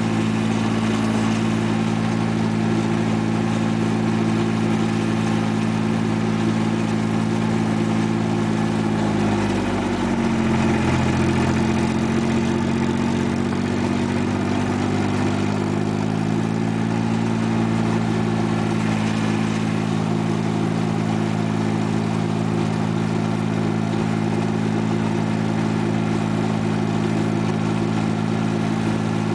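Compact diesel farm tractor engine running under way. Its speed drops about ten seconds in and picks back up a few seconds later.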